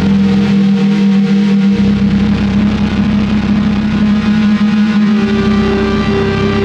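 Background music with a low note held steadily, a droning sound.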